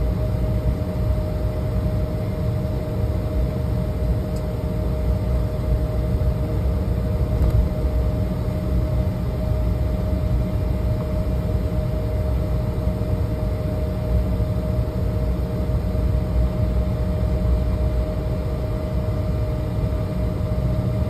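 Steady cabin noise inside an airliner on the ground after landing: a deep, even rumble with a steady hum over it.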